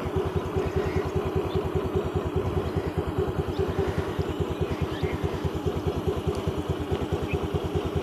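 Vehicle engine running steadily on the move, with an even, fast low pulse of about ten beats a second.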